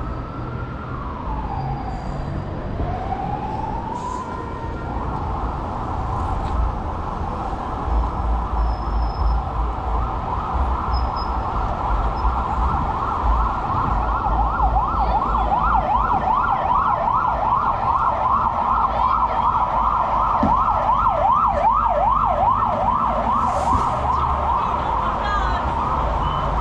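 Emergency vehicle siren: a slow wail rising and falling, then from about five seconds a held tone, switching about ten seconds in to a fast yelp of quick repeated sweeps that runs on. Low traffic rumble underneath.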